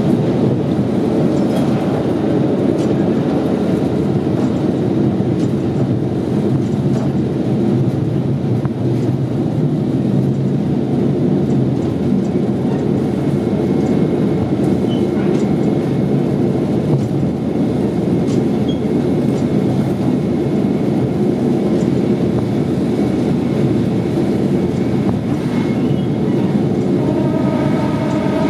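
KiHa 40 diesel railcar under way, heard from inside the car: a steady, dense rumble of its diesel engine and wheels on the rails, with a few faint clicks. Near the end a steady tone with several overtones comes in.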